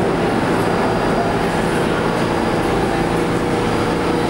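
New York City Subway R160A-1 train pulling out of the station into the tunnel: a loud, steady rumble of the cars on the track.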